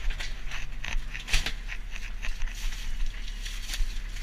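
Iced fish and crushed ice being grabbed and shifted by gloved hands in a fishing boat's hold, giving irregular knocks, clatter and crunching over a steady low machinery drone. A low hum in the drone cuts off about a second in.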